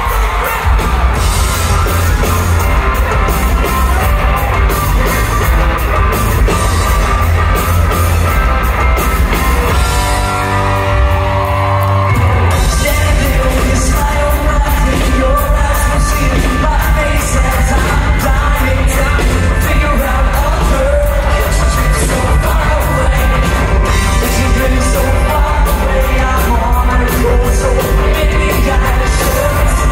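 Live pop-punk rock band playing loud, with lead vocals, electric guitars, drums and piano, heard from the audience in a large hall. The drums and bass drop out for about two seconds midway, then the full band comes back in.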